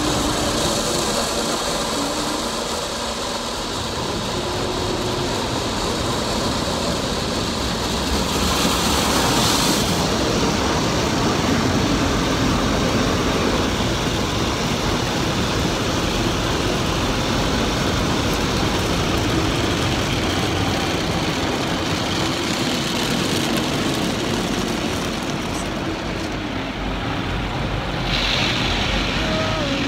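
Automatic car wash machine spraying water over the car, heard from inside the cabin as a steady rushing, with a sharper hissing surge of spray about nine seconds in and again near the end.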